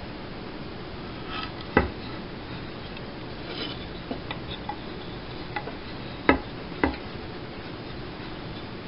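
A pine board and a small wooden jig knocked and set down on a wooden tabletop: a sharp knock about two seconds in, lighter clicks and taps in the middle, then two sharp knocks close together near the end, over a steady hiss.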